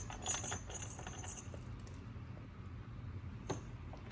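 Faint light clicks and rattles of a cat pawing and nosing at a treat puzzle toy, bunched in the first second, with one more click near the end.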